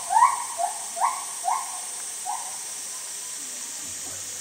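A quick run of about six short, loud calls in the first two seconds, each sliding sharply up and then holding. They sit over a steady high, hiss-like drone of summer cicadas.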